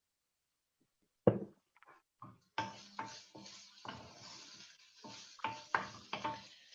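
Kitchen utensils clinking and knocking: a sharp knock about a second in, then a run of smaller knocks and clinks as a teaspoon is worked in a jar of garlic and ginger puree and at the pan.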